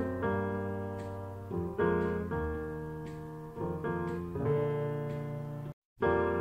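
Background piano music: chords struck and left to ring and fade, a new chord about every one to one and a half seconds, broken by a brief dropout near the end.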